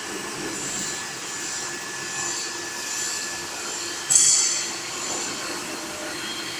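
GD-500 forging roll machine running with a steady mechanical drone and hiss. About four seconds in comes a sudden loud, high-pitched burst that fades within half a second.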